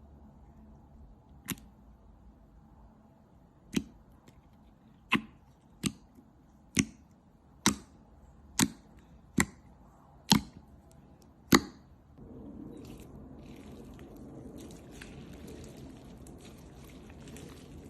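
Slime being pressed and stretched by hand, giving about ten sharp pops at roughly one-second intervals. About twelve seconds in it changes to a steady crackly squishing.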